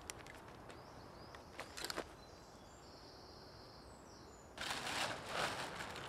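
Lightweight ripstop nylon tent fabric rustling and flapping loudly as it is shaken out, starting about three-quarters of the way in. Before it come a few light clicks and a faint bird call.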